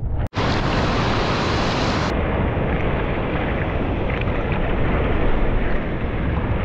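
Ocean surf washing and breaking, with wind rumbling on the microphone. The sound cuts out for an instant just after the start.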